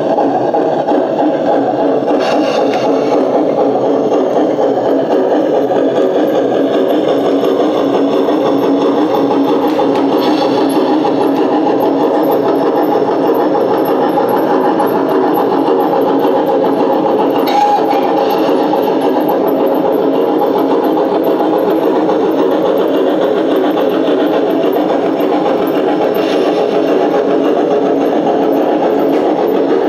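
An LGB G-scale model train running on the layout, with a steady engine-like drone and a few faint clicks.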